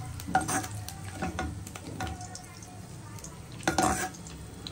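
A spoon scraping and knocking against a non-stick kadai as fried onion and garlic are scooped out of the oil, over a faint sizzle of hot oil. The scrapes come every second or so, with the loudest cluster near the end.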